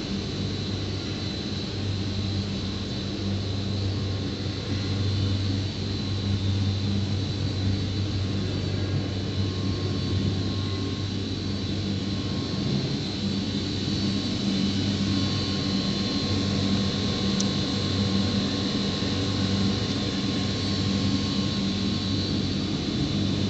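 ABA three-layer blown-film extrusion machine making biodegradable bag film, running: a steady machine hum with a thin high whine above it.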